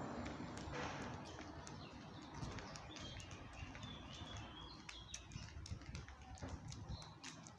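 Small birds chirping in short high calls, over a run of footsteps while walking.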